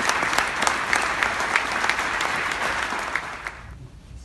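Large crowd applauding, a dense patter of many hands clapping that dies away about three and a half seconds in.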